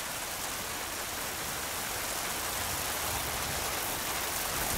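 Steady rushing hiss of granular product pouring, like a dense fall of fine grains, slowly growing a little louder.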